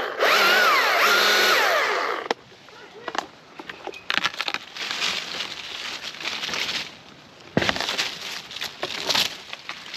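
Chainsaw running and cutting wood, its pitch rising and falling as it revs, then stopping abruptly about two seconds in. After it, crackling and rustling with scattered sharp clicks and a low thump later on.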